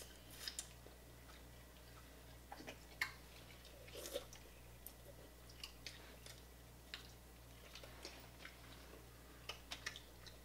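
Faint, irregular clicks and cracks of cooked crab-leg shell being cracked and picked apart by hand, mixed with close chewing.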